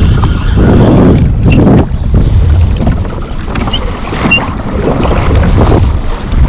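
Wind buffeting the microphone on open water: a loud, low rumble that swells and eases about once a second.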